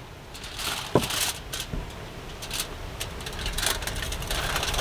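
Aluminium foil crinkling and rustling, with small clicks, as hands rub oil and spices into a raw whole chicken lying on it, over a low rumble of wind on the microphone.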